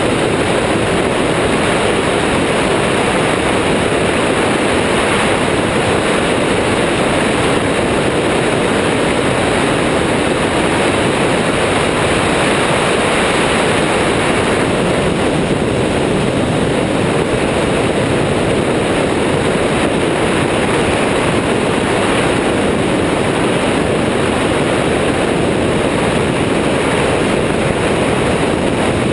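Steady rush of wind on the microphone of a camera fixed to the wing of an Airborne XT Tundra microlight trike in flight, mixed with the constant drone of its engine and pusher propeller, unchanging throughout.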